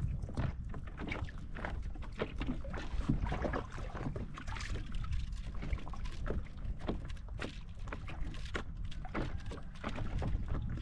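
Water lapping and slapping against a small outrigger boat, with a steady low rumble of wind on the microphone and many scattered light clicks and knocks.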